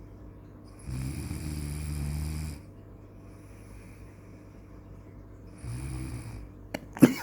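Snoring: two snores a few seconds apart, a long one about a second in and a shorter one later. A sharp knock near the end is the loudest sound.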